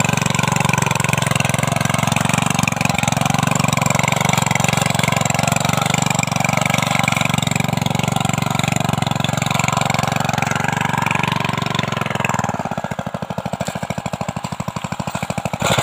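Small petrol engine of a mini cultivator (hand tiller) running steadily while its tines churn soil. Near the end it slows to a lower, pulsing putter.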